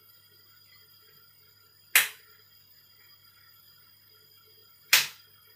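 Two sharp, loud clicks about three seconds apart, each dying away quickly, over a faint steady hum.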